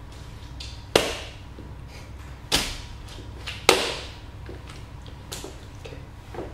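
Cowboy boot heels stomping on a tile floor, crushing grapes: three sharp stomps a second or so apart, then lighter taps near the end.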